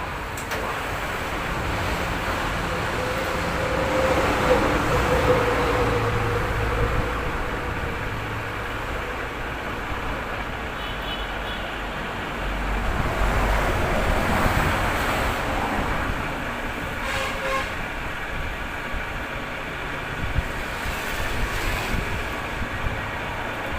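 Machine-shop noise from a metal lathe machining a Multicab axle shaft: a steady running hum with the cutting noise, which swells louder twice.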